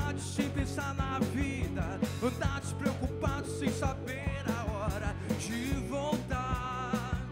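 Rock band playing an instrumental break: drum kit, bass guitar and electric guitar, with a harmonica played into the vocal microphone carrying a bending, wavering lead line that ends on a held chord of several notes.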